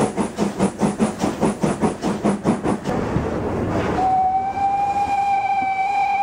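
FS Gr. 625 steam locomotive working with fast, even exhaust chuffs, about five a second. The beats stop about three seconds in, and after a second of hiss the steam whistle sounds one long steady note, still going at the end.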